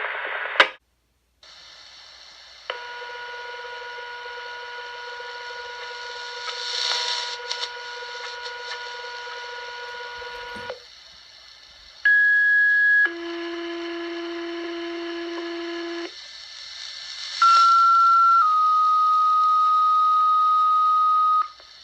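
Fire department paging tones received over a police scanner during a pager test. A long steady tone of about eight seconds comes first. Then come two two-tone pages, each a short higher tone of about a second going straight into a longer steady tone of about three seconds. These are sequential alert tones that set off the fire and EMS pagers.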